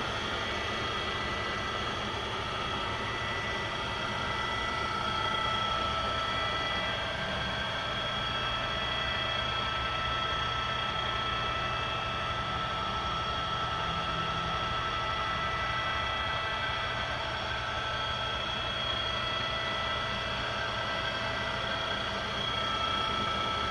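Ooya RE2-1300A radial drill press running: a steady hum of its electric motor and gearing, with several high whining tones held level throughout.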